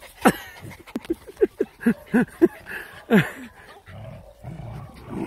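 Terriers barking in play: a quick string of short barks, each dropping in pitch, then low growling from about four seconds in as two of them tug at a rope.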